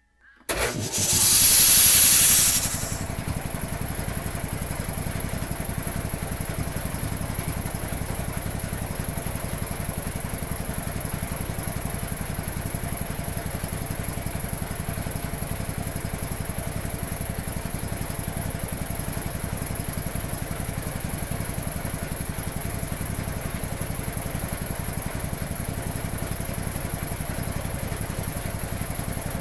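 1950s Quincy 320 air compressor, driven by a 3 hp electric motor with its pump turning about 700 rpm, starting up. About half a second in comes a loud hissing rush lasting about two seconds, then it settles into a steady, rapid even chugging as it runs.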